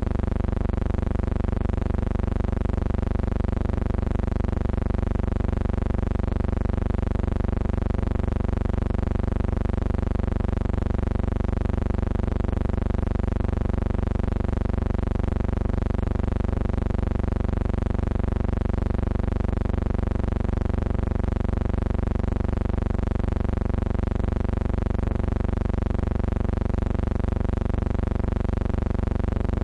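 Steady electrical hum with a stack of even overtones, unchanging throughout, typical of mains hum or buzz on the soundtrack of archival film footage that has no sound of its own.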